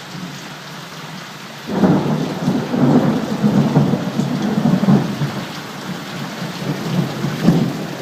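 Violent thunderstorm: heavy rain hissing. About two seconds in, a loud rumble breaks in suddenly and rolls on, rising and falling.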